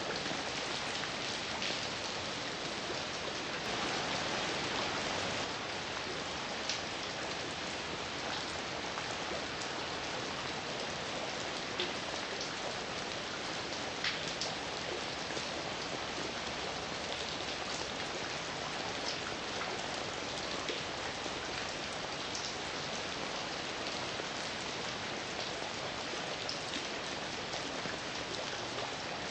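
Steady heavy rain falling on a surface, an even hiss with scattered louder individual drops.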